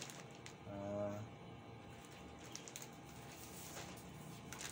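Faint crinkle and handling of a plastic courier pouch being turned in the hands, with a short low hummed tone about a second in.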